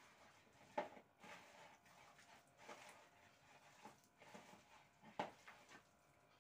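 Hands squishing and mixing thick gram-flour batter with pieces of potato and onion in a bowl: faint, irregular wet squelches, with two sharper ones about a second in and about five seconds in.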